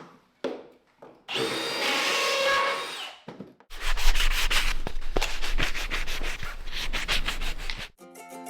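Woodworking on cabinet parts: a power tool runs for about two seconds, then a longer stretch of rough, rhythmic sanding on wood. Music comes in near the end.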